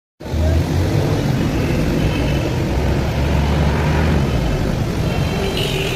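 Busy street noise with motor traffic: a steady rumble of engines starting suddenly and running on.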